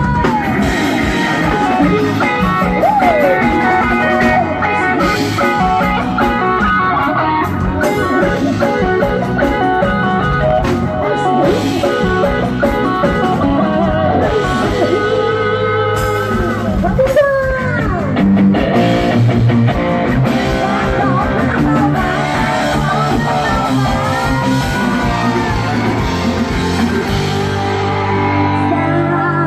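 Live band music: guitar over a drum kit, with gliding melody notes and a singing voice.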